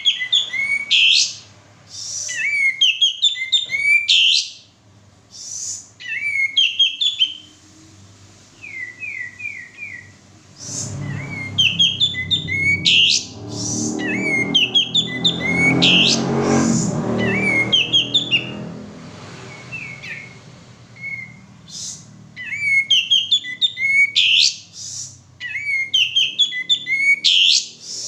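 Male kapas tembak bulbul singing in bouts of rapid, high chirping and whistled phrases separated by short pauses. In the middle, a rough low rumbling noise runs under the song for several seconds.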